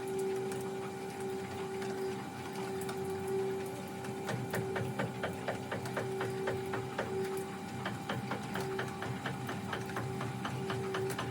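Steady mechanical hum, joined from about four seconds in by a fast, even run of sharp clicks, about four a second.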